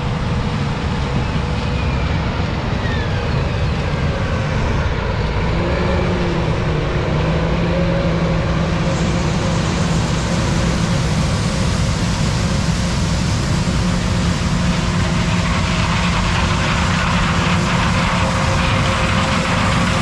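Heavy diesel farm machinery at work in a corn harvest, running steadily. A deep engine hum sits under a dense, even mechanical noise.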